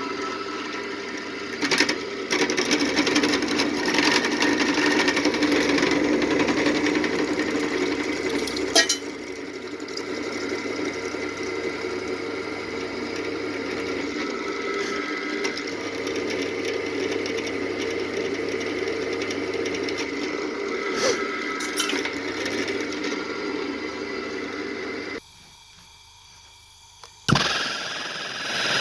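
A small electric power tool's motor running steadily, with a few sharp clicks along the way. It cuts out about 25 seconds in, and after a click near the end a louder sound starts.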